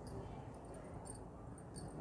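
Quiet room tone with faint handling noise, a couple of small soft clicks, as a round cake is lifted and turned by hand over a paper plate.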